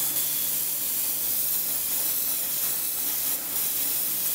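Airbrush spraying paint at about 28 psi: a steady hiss of compressed air with a brief flare about three seconds in. The paint is too thick and the airbrush is blocking (clogging), so it needs thinning.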